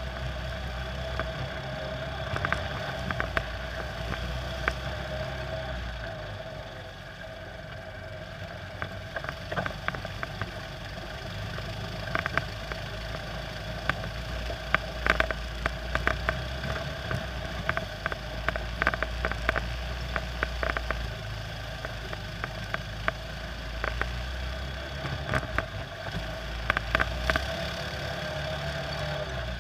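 Quad bike (ATV) engine running at a steady pace across rough, muddy ground, with frequent sharp clicks and knocks of flung mud and stones striking the machine.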